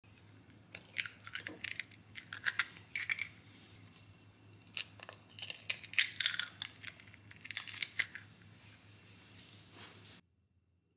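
Eggshells cracking and crunching in several short crackly bouts as four eggs are broken by hand into a bowl. The sound cuts off suddenly near the end.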